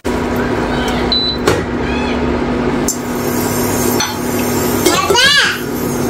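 Cooking in a kitchen: a few sharp knocks of utensils against pots or a board over a steady hum, with a short vocal sound sliding up in pitch near the end.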